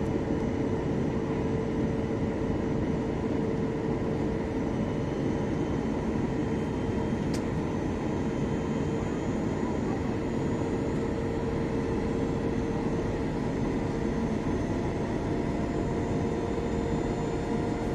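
Steady airliner cabin noise during descent: an even rumble of jet engines and airflow with a constant hum tone running through it. There is a single faint click about seven seconds in.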